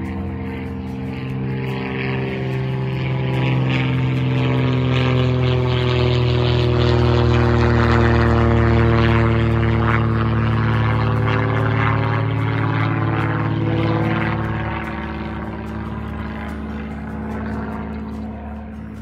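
Propeller aircraft flying over: a steady engine drone that grows louder, peaks about eight seconds in, then fades as its pitch sinks slightly while it passes.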